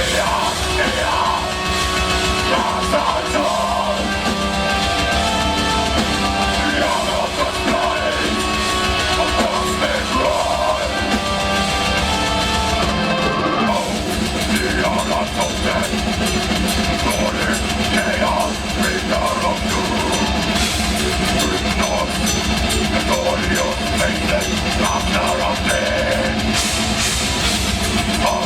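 A metal band playing live: distorted guitars, bass and pounding drums, with vocals over them. About halfway through there is a brief break, after which the drumming gets denser and faster.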